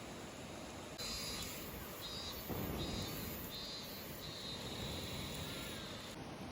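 Crickets chirping in repeated trills, then a steadier held trill, over a steady background hiss.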